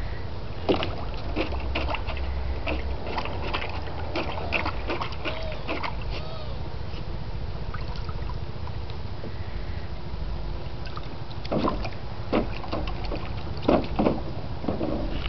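Water sloshing and splashing as a small dog wades about in a shallow plastic kiddie pool, in short irregular splashes over a steady low rumble. The splashing is busy for the first few seconds, eases off in the middle, and picks up again near the end.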